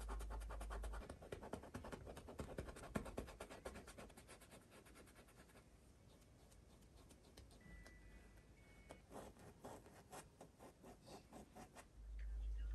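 Paintbrush loaded with water-mixable oil paint scrubbing across canvas: rapid scratchy strokes for about five seconds, softer after, then a run of separate strokes near the end.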